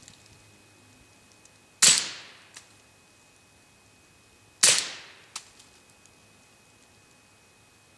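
Two suppressed 9mm pistol shots from a Beretta 92FS Centurion fitted with a SilencerCo Osprey suppressor, about three seconds apart. Each is a sharp pop with a short fading tail, followed by a faint tick.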